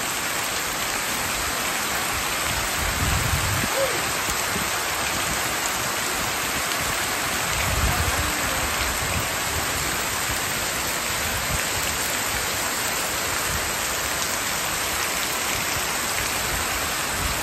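Heavy tropical downpour: a steady hiss of rain falling on leaves, a patio roof, paving and lawn. Two brief low rumbles come about three and eight seconds in.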